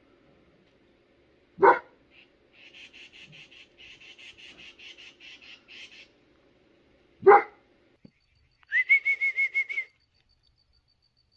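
A large dog barking twice, single loud barks about five and a half seconds apart. Between them a bird chatters in quick, soft repeated notes, about four a second, and near the end comes a short, high trilled whistle on one steady pitch.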